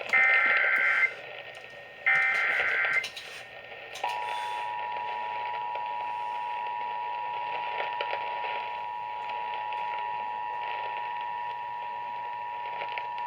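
Emergency Alert System tones: the last two of the three SAME header data bursts, screechy digital chirps about a second long and a second apart, then about four seconds in the steady two-tone attention signal begins and holds, announcing a severe thunderstorm warning.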